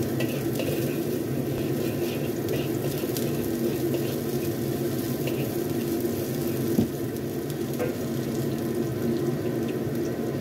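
Minced garlic and spring onion sizzling in oil in a wok, stirred and pushed around with a metal spatula that scrapes and taps the pan now and then, at the stage of sautéing until fragrant. A steady low hum runs underneath, and there is one short knock about seven seconds in.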